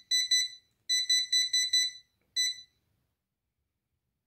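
Fuloon 13-inch LED wall clock's built-in beeper giving short high-pitched beeps, one per button press, as the brightness level is stepped up and down. There are about ten beeps in the first two and a half seconds, several in a quick run, and then they stop.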